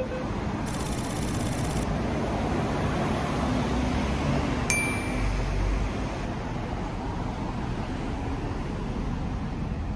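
City street traffic noise with a steady rumble. A single bell-like ding rings out about five seconds in, and a faint high rapid ticking is heard briefly about a second in.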